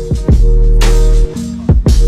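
Electronic music with heavy sustained bass and a punchy drum beat, in a dubstep style.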